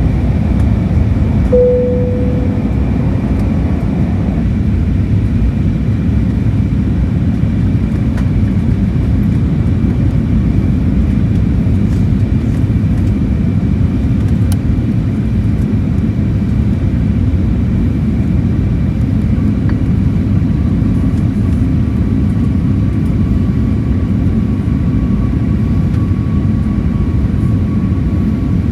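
Steady in-flight cabin noise of an Airbus A320neo in descent: a low rumble of airflow and engine noise with a faint steady whine. A short fading tone sounds about a second and a half in, and a second faint steady tone comes in about two-thirds of the way through.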